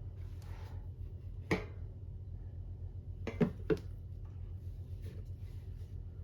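A few sharp clicks and knocks from handling a plastic oil container and funnel while pouring transmission oil: one about a second and a half in, then two close together a little past halfway, over a steady low hum.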